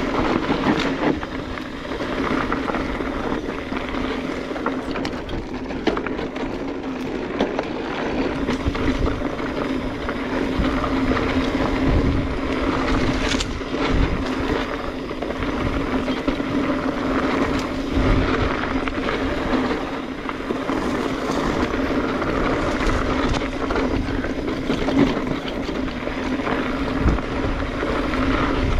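A 2021 Specialized Stumpjumper EVO Comp 29 mountain bike rolling steadily down a dirt trail: tyre and wind noise with a constant hum, and knocks as the bike rattles over bumps.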